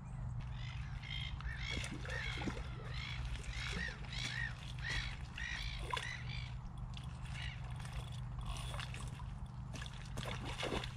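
A bird calling: a run of short, repeated arched notes, about two a second, that stops about seven seconds in, over a steady low hum.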